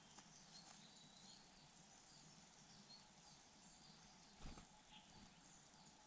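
Near silence: faint outdoor ambience with scattered faint high chirps, and a soft low thump about four and a half seconds in.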